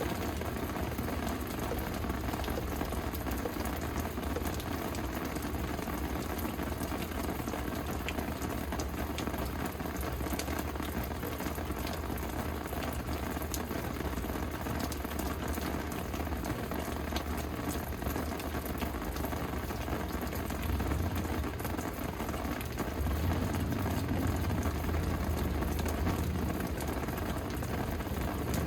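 Steady rain falling, an even patter with a low rumble underneath that grows louder near the end.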